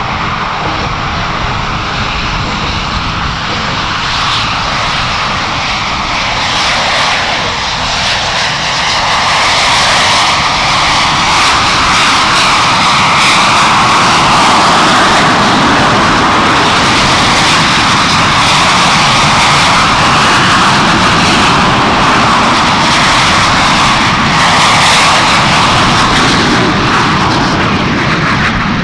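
Canadair CT-114 Tutor jet engines running: a loud, steady rushing roar that grows louder over the first ten seconds or so, then holds.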